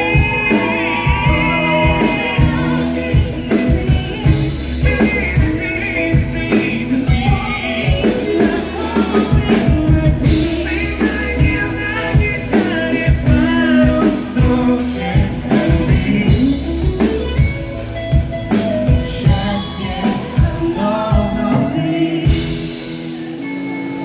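Pop song with a drum beat, bass and singing in which no clear words come through; the drums and bass drop out shortly before the end.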